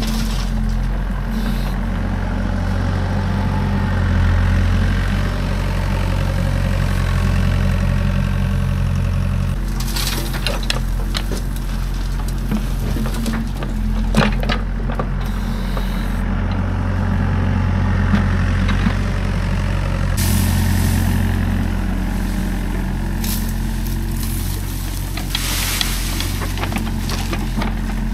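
A heavy truck engine runs steadily at low revs, with scattered knocks and clattering over it.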